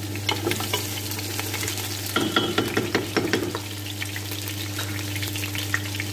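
Quartered red onions sizzling and crackling in hot ghee in a pot, over a steady low hum. About two seconds in there is a brief stretch of clattering, lasting a little over a second.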